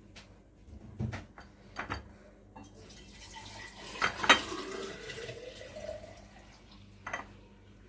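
Light clicks and knocks of hands handling a platter of roast chicken while pushing decorative quail-egg skewers into it, with a sharper knock about halfway through. A stretch of hissing noise runs through the middle.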